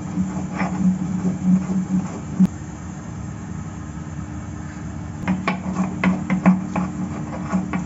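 Spices being ground by hand on a stone slab with a grinding stone: rhythmic back-and-forth grinding strokes, about three a second. The strokes stop for about three seconds in the middle and then start again.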